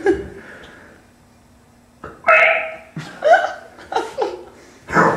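A person's voice making short, exaggerated burp- and hiccup-like mouth noises as comic sound effects, three or four of them after a quiet pause of about two seconds.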